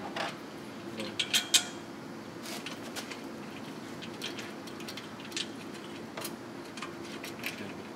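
Metal exhaust pipes and flanges clinking and tapping against each other as they are fitted together by hand, with a cluster of sharper clicks about a second in. A steady low hum runs underneath.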